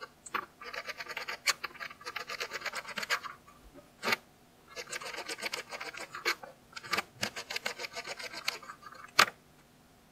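Knife dicing a carrot on a plastic cutting board: two runs of quick, repeated cuts, each about three seconds long, with single louder knocks between them and near the end.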